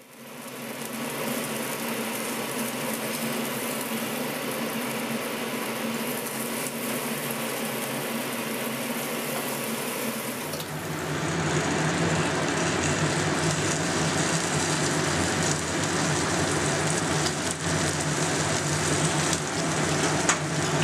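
Flour-coated Bombay duck fillets shallow-frying in a little oil in a nonstick pan, with a steady sizzle. About halfway through, the sizzle gets louder and deeper as a spatula turns the pieces.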